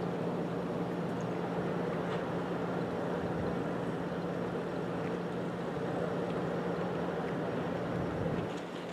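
Motorboat engine running steadily, a constant low hum under wind and water noise; it eases off near the end.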